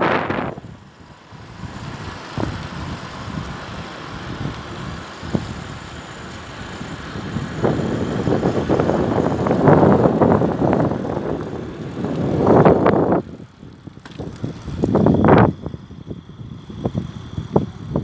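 Bicycle riding, heard from a camera mounted on the bike: steady tyre and road noise with small rattles, and wind buffeting the microphone in several loud gusts in the second half.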